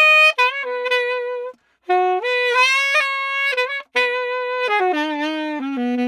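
Yamaha 62 saxophone played solo: a melody in short phrases with quick breaths between them, ending on a falling run down to a low held note.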